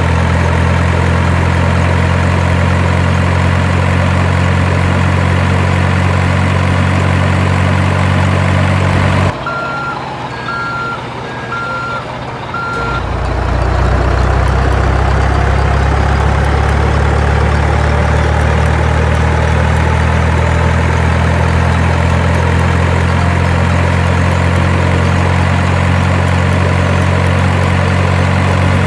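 Truck engine idling steadily. About nine seconds in it drops away, a reversing alarm beeps four times, and then the engine hum returns.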